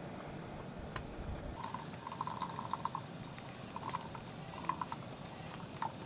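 Insects chirping in short, rapidly pulsed trills, faint, with a couple of sharp clicks.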